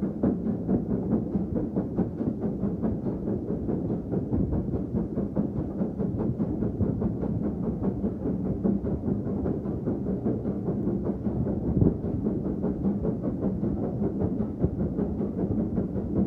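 Heritage railway train running along the line, a steady low rumble with fine, rapid knocking through it.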